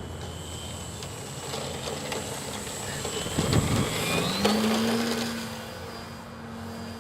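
Engine of a radio-controlled Funtana model airplane buzzing in flight, rising in pitch and growing louder about four seconds in as it is throttled up. A gust of wind buffets the microphone just before.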